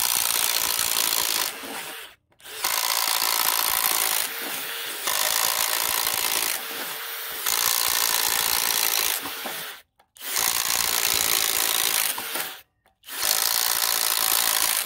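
Kobalt X.T.R. 24V brushless impact driver running on high speed, driving a 3/4-inch spade bit through a wooden board: loud motor noise with the bit chewing wood. It bores four holes in quick succession, stopping briefly between them.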